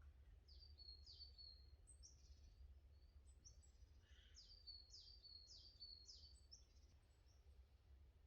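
Faint songbird singing a run of high, quickly falling notes, about two a second, over a low steady rumble.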